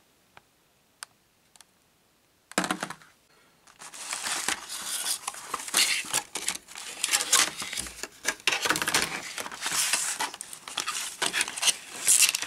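Plastic and cardboard packaging crinkling and tearing as it is opened by hand. A few faint clicks at first, then dense crinkling from about four seconds in.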